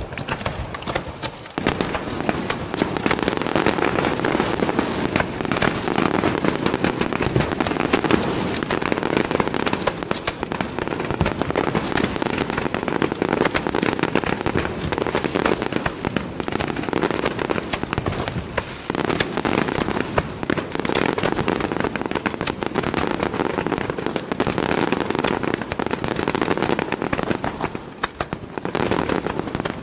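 Setti Fireworks aerial shells bursting in a dense, rapid barrage, the reports running together almost without a gap after an abrupt start.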